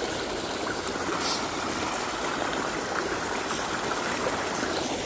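Mountain stream rushing steadily over rocks, heard close by.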